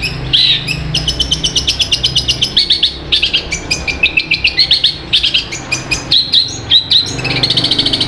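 Long-tailed shrike (cendet) singing a fast, unbroken run of short sharp chirps, many notes a second, over a low steady hum.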